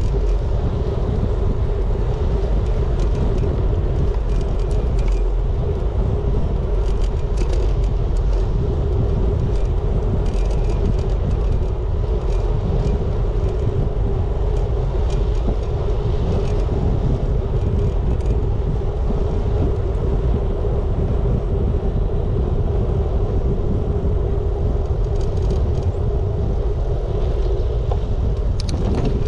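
Wind rushing over the microphone of a GoPro on a moving bicycle, with a steady mid-pitched hum and scattered light rattles.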